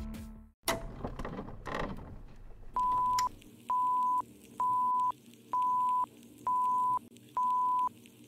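Film-leader countdown beeps: a steady high beep about half a second long, repeated once a second, seven times, over a faint film crackle. Before the beeps, music fades out and two short whooshes sound.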